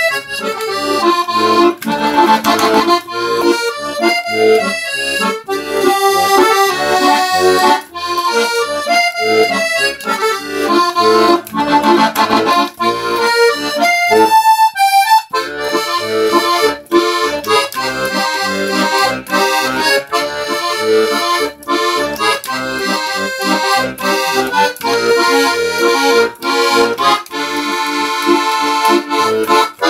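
Bayan (chromatic button accordion) playing a quick melody over bass and chord accompaniment. About halfway through it drops to a single note for a moment.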